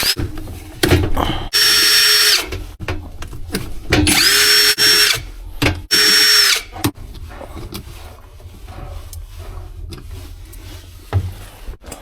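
Cordless drill-driver running in three short bursts of about a second each, spinning up to a steady whine, backing out screws on a top-loading washing machine, with clicks and clatter of handling between them.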